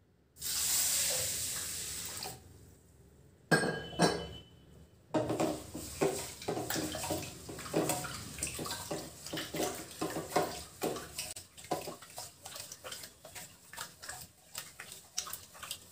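Rice being washed by hand in a steel pot: water rushes in at the start, the pot clanks about four seconds in, then quick irregular swishes and scrapes of wet rice grains rubbed against the steel.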